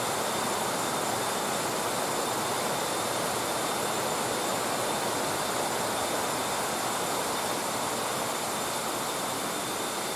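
Mountain waterfall: water falling and rushing with a steady, unchanging noise.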